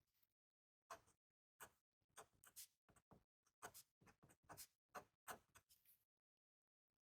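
Faint, short scratches of a Sailor Clear Candy fountain pen's nib writing on paper, in quick separate strokes.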